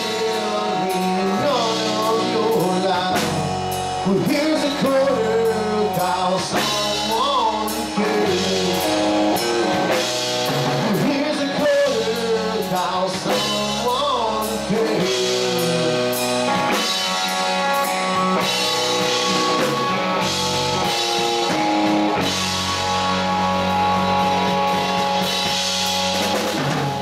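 Live rock band playing: electric guitar, bass guitar and drum kit, with a man singing.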